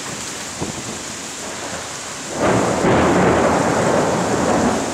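Heavy thunderstorm rain falling steadily, with a loud rumble of thunder breaking in about halfway through and fading near the end.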